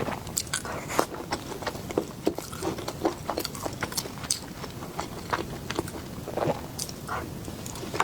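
A person chewing and biting food, with many short crisp crunches and wet mouth smacks several times a second.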